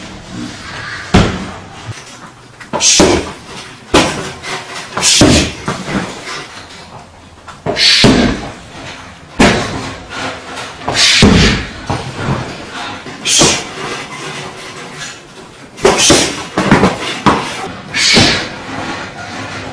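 Punches and kicks landing on leather focus mitts during pad work: sharp smacks at irregular intervals, roughly one every second or two, some in quick pairs.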